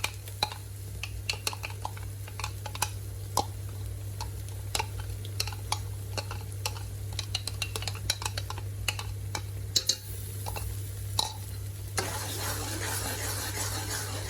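A spoon clinking and scraping against a cooking pot while ginger-garlic paste is stirred into onions frying in oil; about twelve seconds in, a louder, steady sizzle of frying comes up.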